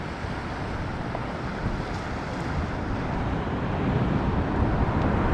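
Waves washing over coastal rocks, with wind buffeting the microphone: a steady rushing that slowly grows louder.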